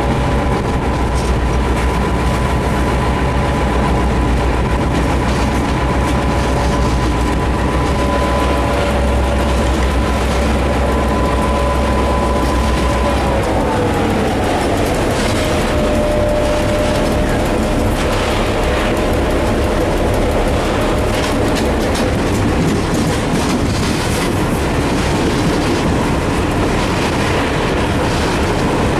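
Diesel locomotive running with a deep engine rumble and a steady whine. About fourteen seconds in, the whine glides down in pitch and the rumble weakens as the engine note drops. Wheels click over rail joints throughout.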